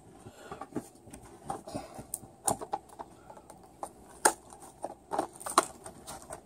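Small objects being handled by hand: a run of irregular clicks, taps and light knocks with some rustling, the loudest a few sharp knocks about two and a half, four and five and a half seconds in.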